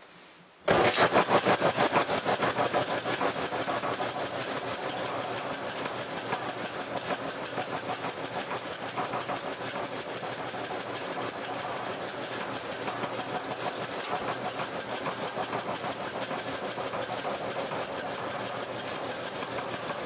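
Gas clothes dryer starting up: its motor, blower and turning drum start abruptly about a second in and run steadily, with a fast, even pulsing.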